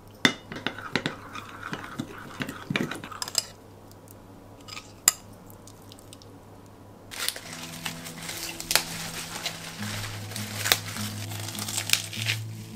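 A metal measuring spoon stirs and clinks against a small glass bowl for the first few seconds as powdered seasoning is mixed into a dressing. From about seven seconds in, lettuce leaves are torn and crumpled with a crisp rustle, and soft background music comes in.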